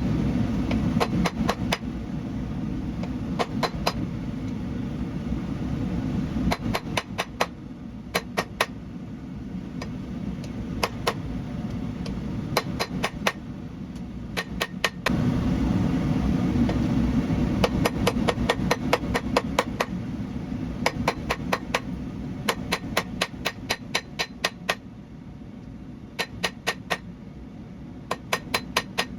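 Hand hammer striking hot Damascus steel on an anvil in quick runs of ringing blows, several a second, with short pauses between runs. A steady low rumble runs underneath and grows louder about halfway through.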